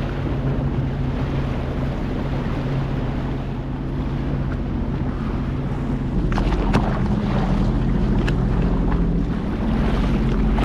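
Sea-Doo personal watercraft engine idling steadily with a low, even hum, with wind on the microphone. A few sharp clicks come through between about six and eight seconds in.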